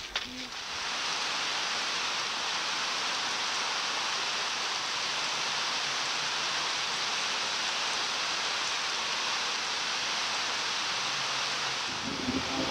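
Heavy rain falling: a steady, even hiss that sets in about a second in. Near the end, a low steady hum joins it.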